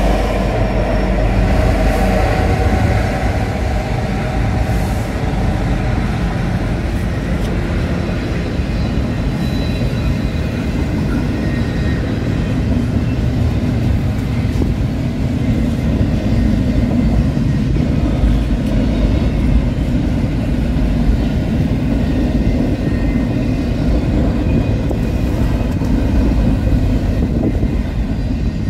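Train passing at close range: a diesel locomotive's engine hum fades over the first few seconds, then a steady rolling rumble of the cars going by.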